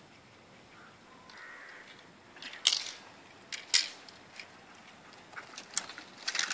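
Sharp cracks of a protection-training helper's stick. The two loudest come about a second apart near the middle, and several fainter ones follow.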